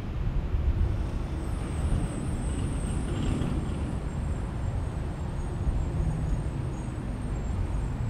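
Road traffic around a parking lot: a steady low rumble of passing vehicles, with a thin high whine that comes in about a second in and fades near the end.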